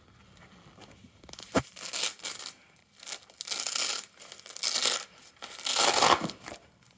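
Tearing and crinkling of an adhesive vinyl graphic being peeled and handled, in a series of rough bursts starting about a second and a half in.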